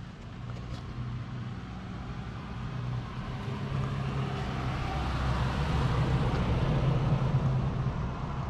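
Buell Blast's 500cc single-cylinder engine idling steadily through a makeshift wired-on muffler, growing louder over the first six seconds or so.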